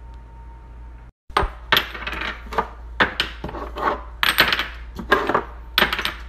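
Small glass spice jars clinking and clattering against one another and the counter as they are quickly lifted out of a drawer, a rapid run of sharp clinks with a bright ring that starts about a second in after a brief dropout.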